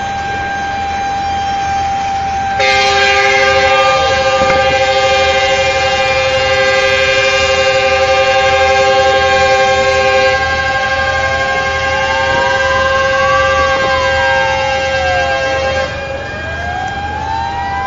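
Emergency alarm sirens sounding over a burning chemical plant: several steady alarm tones, more joining a couple of seconds in, then a siren wailing slowly up and down in pitch from about ten seconds in.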